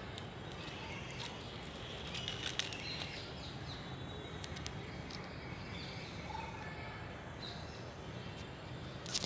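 Outdoor park ambience: a steady low background rumble with a few faint bird calls, and a few light clicks about two seconds in.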